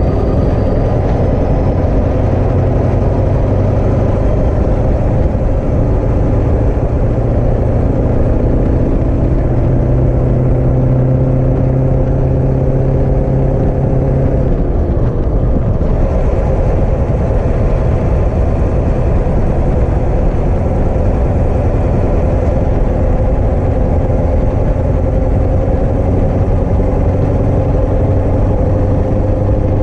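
A pickup truck's engine working hard as it tows a loaded gooseneck trailer up a grade, with tyre and gravel road noise. The engine note climbs slowly, drops about halfway through, then climbs again.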